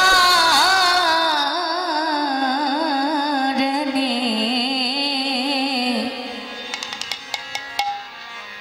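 A woman singing a Bengali devotional kirtan into a microphone, holding one long note with a wavering pitch that ends about six seconds in. A few sharp percussion strikes follow near the end.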